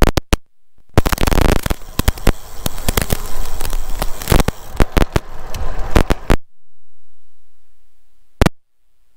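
Wind and road rattle on the microphone of a camera mounted on a moving bicycle: a loud rushing noise full of sharp crackles and knocks. It drops away abruptly about six seconds in, and one more knock comes near the end.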